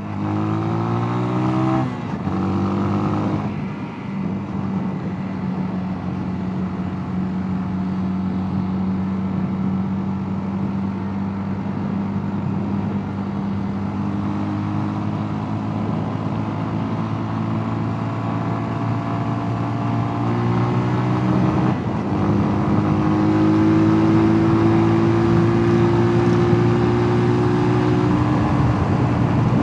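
Mash Two Fifty 250 cc single-cylinder motorcycle engine accelerating hard through the gears, with two quick upshifts in the first few seconds. It then holds a steady, slowly climbing note at high revs, shifts once more about three-quarters of the way through, and runs on near its top speed.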